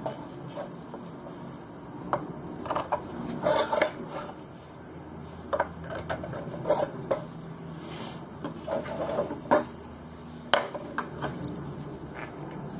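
Irregular metallic clinks, clicks and light rattles of small metal parts and tools being handled and fitted, scattered unevenly a second or so apart.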